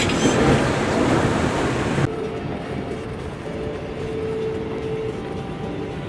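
Rush of breaking ocean waves and wind noise. About two seconds in it cuts off abruptly to a quieter steady rumble with a faint held hum.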